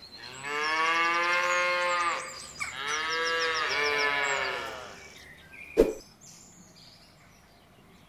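A cow mooing twice, two long drawn-out calls with a short break between them. A single sharp click follows about six seconds in.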